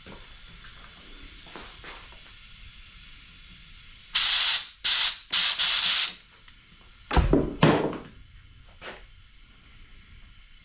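Three short hissing bursts of pressurized spray, each about half a second long, followed a second later by two solid knocks and a small click.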